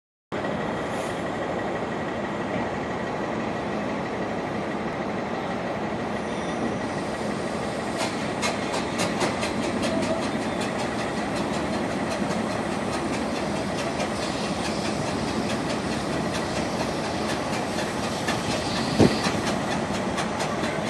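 Railway turntable rotating under a diesel locomotive: a steady mechanical running noise, joined from about 8 seconds in by irregular clicking and clanking, with one sharper knock near the end.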